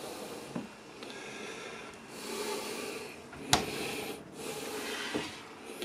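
Rubbing and handling noises around a small galley refrigerator, with a sharp knock about three and a half seconds in as the fridge door is shut.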